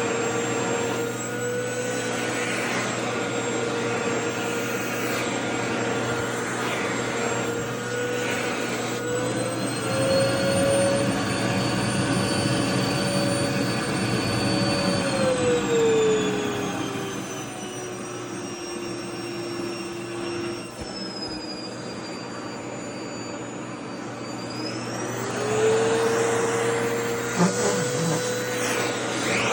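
Vacuum cleaner motor running with a steady whine. Its pitch rises slightly about ten seconds in, then drops lower and quieter for several seconds before climbing back up near the end, with a few soft knocks late on.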